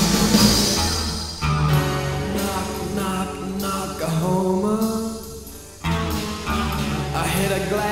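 Alternative rock music from a 1988 studio recording: guitars and bass playing a passage without lyrics. The sound thins out and falls away from about four seconds in, then the full band comes back in abruptly just before six seconds.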